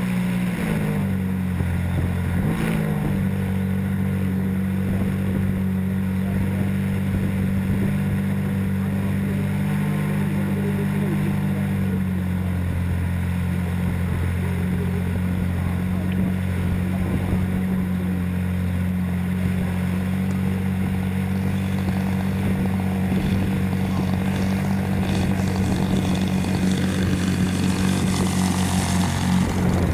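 RC model airplane's motor and spinning propeller, recorded from on board the plane and running steadily through the flight. Its pitch shifts slightly a couple of times as the throttle changes.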